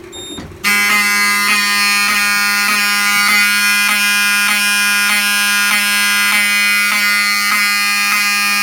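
Fire alarm horns on a Simplex 4008 system sounding continuously after a manual pull station is pulled: a loud, steady buzzing horn tone that starts suddenly under a second in. It cuts off abruptly at the end.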